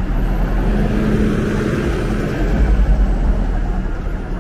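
Road traffic: a motor vehicle engine running close by with a steady low hum over road noise, growing a little louder just past halfway.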